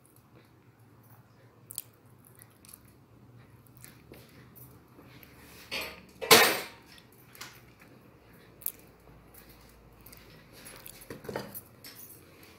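Kitchen clatter of objects being handled and set down: scattered light clicks and knocks, the loudest a sharp clatter about six seconds in, with another knock shortly before the end.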